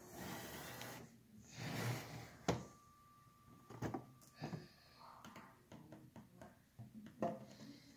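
Two soft rushing noises of breath or handling, then a string of sharp clicks and knocks of plastic LEGO pieces as the roof of the brick-built house is handled and lifted off.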